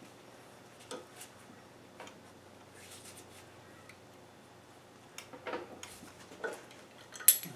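A few faint, scattered metal clicks and knocks from tools and parts being handled on the mill, with one sharper metallic click near the end.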